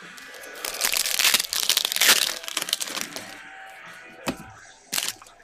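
Foil trading-card pack wrapper being torn open and crinkled for about two seconds, then two short sharp clicks as the cards are handled.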